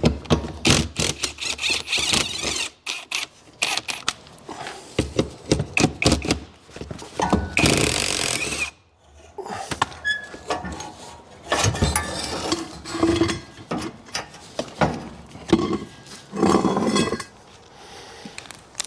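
Tools at work removing a VC Commodore's tail shaft: a busy, irregular run of metallic clicks, clanks and knocks, with a loud one-second burst of noise about eight seconds in.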